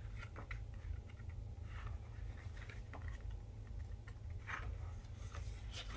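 Faint rustling and light ticks of album photobook pages being handled and turned, a few scattered touches over a steady low hum.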